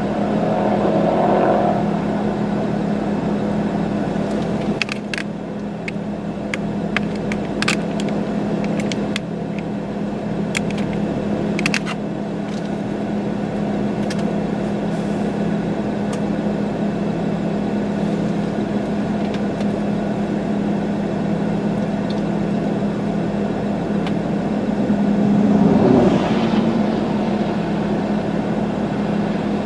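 A vehicle engine running with a steady hum. A few sharp ticks come in the first half, and a louder swell rises and fades near the end.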